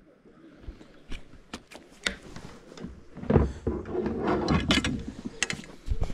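Knocks, clicks and scraping as a landed brook trout and a fish measuring board are handled in a plastic kayak, with a dense cluster of knocks and scrapes about three to five seconds in.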